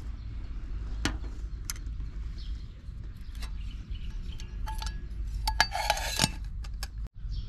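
Aluminium camping pot being handled: scattered light clicks and taps. About six seconds in, the lid is set on with a clink and brief metallic ringing.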